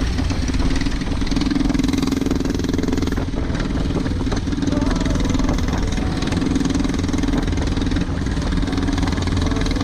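Small engine of a homemade mini bike running steadily at an even speed.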